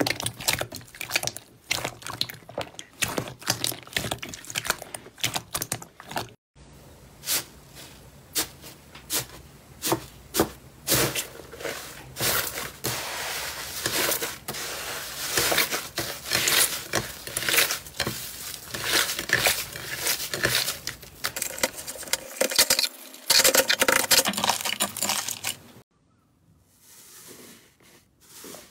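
Hands squeezing, pressing and pulling slime: a rapid run of sticky clicks, pops and crackles. There is a short break about six seconds in, the sounds grow busier and louder in the middle, and they turn much quieter near the end.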